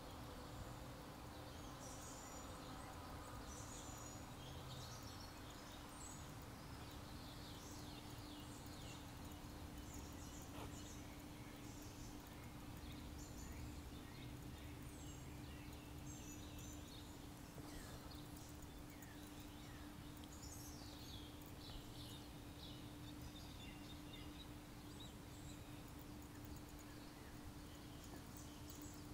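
Faint outdoor ambience: scattered high bird chirps, thinning out after about twenty seconds, over a steady low hum and a low rumble.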